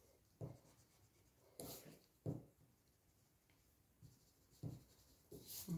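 Pencil strokes on drawing paper: several short, faint scratches.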